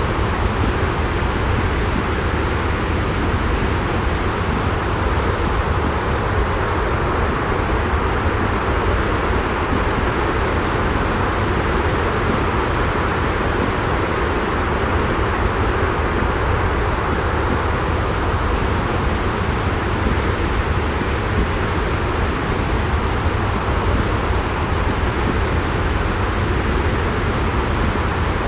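Steady white-noise sleep track: an even, unbroken rush with a strong low rumble and no separate events.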